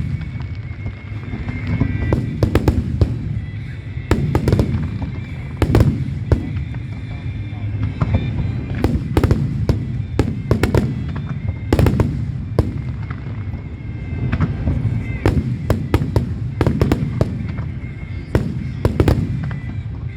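A fireworks display: aerial shells bursting in rapid succession, many sharp bangs, some in quick clusters, over a continuous low rumble of overlapping explosions.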